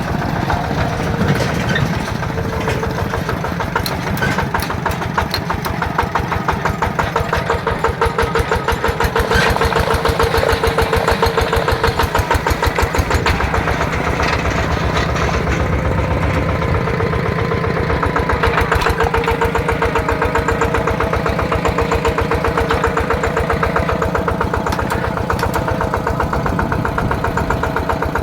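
Yanmar TF120 single-cylinder diesel engine running steadily with an even, rapid chugging beat.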